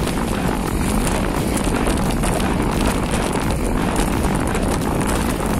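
Steady wind buffeting the microphone, with a heavy low rumble, as on a fast mountain-bike ride.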